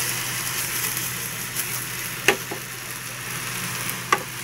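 Oyster and shimeji mushrooms sizzling and bubbling in a hot frying pan, sitting in the water they have released, which stops them browning. A steady hiss with a few sharp clicks, the loudest about two and four seconds in.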